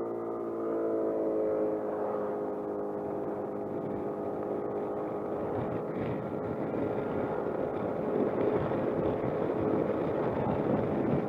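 Suzuki Burgman 200 scooter's single-cylinder engine running at a steady pitch while riding, with wind and road noise growing over the second half.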